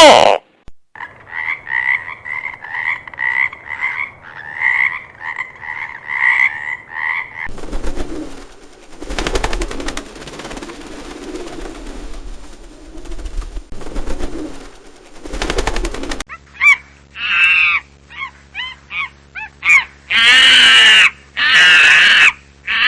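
Animal calls from three different animals in turn. First comes a run of short croaking calls repeated two to three times a second. A noisy rattling stretch follows, and then higher calls that bend in pitch, with two long loud calls near the end.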